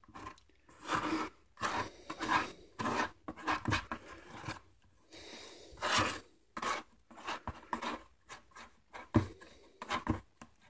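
Paint being stirred and scraped by hand in a small plastic cup: soft, irregular rubbing and scraping strokes, one after another.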